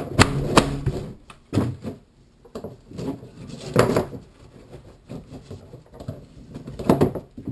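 PVC pipes and fittings of a cat-perch frame being handled, pushed together and knocked against a wooden workbench: irregular knocks and clatters, a few louder than the rest.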